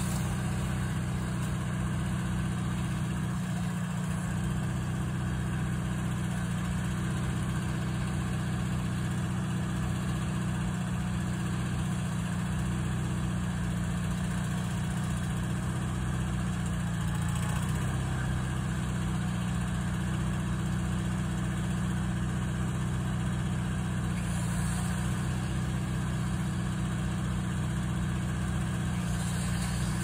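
Engine of a Ford E250 bucket-truck van idling steadily.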